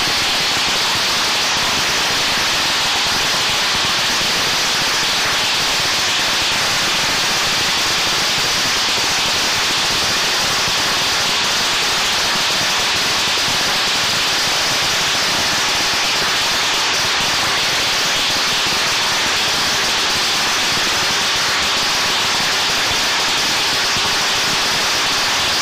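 A long string of firecrackers going off in a continuous, dense crackle that stays steady and unbroken throughout.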